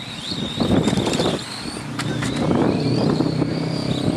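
Radio-controlled F1 race cars driving past close by. Their small motors whine high, with louder rushing passes about half a second in and again about two seconds in.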